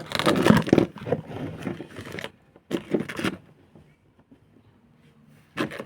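Handling noises from a small boxed toy figure and its packaging being moved about: rustling and scraping in three bursts, the longest in the first two seconds.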